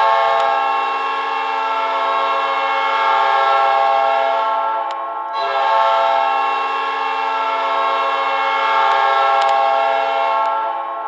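Manitoba Moose hockey goal horn sounding two long blasts of about five seconds each, with a brief break between them. It is a loud chord of several steady tones and starts to fade near the end.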